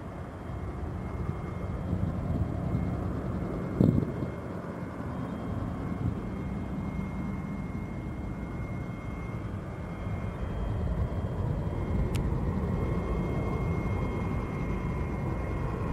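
Distant twin-engine jet airliner climbing away, its engines a steady low rumble. A short thump sounds about four seconds in.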